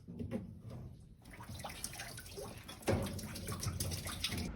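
Running water, as from a tap, stepping up in level about three seconds in.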